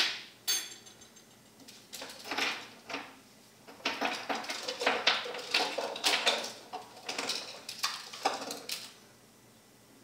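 Clattering in a kitchen sink as a hand rummages down in the garbage disposal opening. A sharp clink comes at the start and another about half a second later, then irregular rattling and scraping of metal and dishware that stops about a second before the end.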